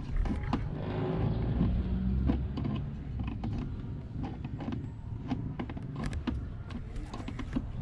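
Hand tool and fingers working a plastic mud guard onto a car's rear wheel arch: a run of small clicks, knocks and plastic creaks, with a low rumble in the first couple of seconds.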